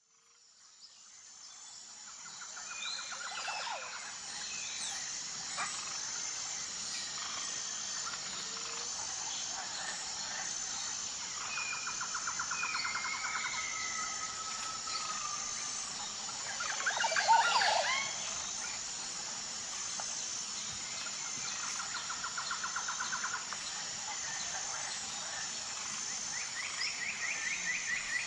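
Tropical montane forest ambience: a steady, evenly pulsing high insect drone with birds calling over it. The birds give several trilled, quavering whistle phrases spaced through the clip, a few gliding whistles, and one louder burst of calls about two-thirds of the way through.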